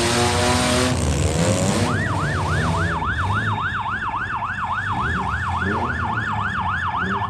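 Electronic siren sounding a fast up-and-down yelp, about three sweeps a second. It starts about two seconds in and cuts off suddenly at the end. Underneath it, demolition derby cars' engines are running and revving.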